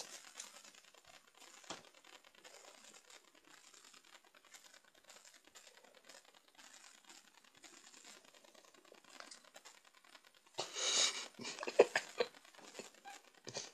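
Faint scattered clicks, then a short burst of rustling and clattering about eleven seconds in: handling noise of a phone held close to its microphone.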